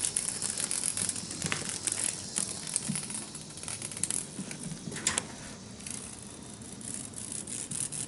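Irregular clicks, taps and rustling as a cat pounces on and bats at a live cicada on a hardwood floor.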